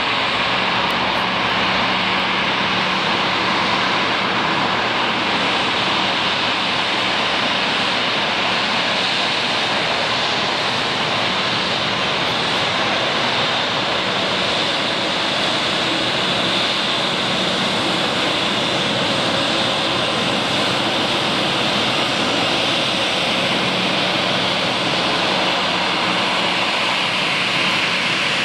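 Embraer 190's twin GE CF34-10E turbofans running at taxi power as the jet taxis: a steady, even jet rush and whine with a faint low hum underneath.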